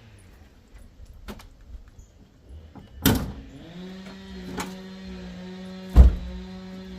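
Clunks from the car body of a Subaru Outback, a door or hood latch shutting: a sharp knock about three seconds in, a smaller one later, and the loudest thump about six seconds in, over a steady hum.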